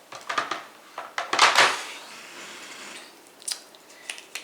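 Makeup containers being handled on a hard surface: a few small clicks, a louder clatter about one and a half seconds in, then a couple of short knocks near the end.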